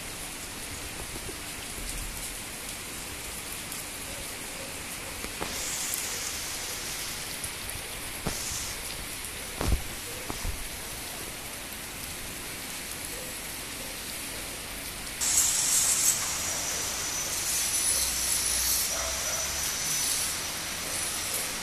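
Heavy rain falling on muddy ground and running water, a steady hiss. There is a brief knock about ten seconds in, and about fifteen seconds in the rain noise turns louder and brighter.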